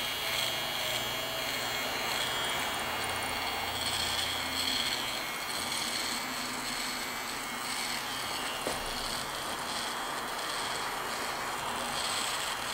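Cordless zero-gap T-blade hair trimmer running steadily as it is drawn over stubble on the jaw and neck, the blade cutting short hair. There is a small click about nine seconds in.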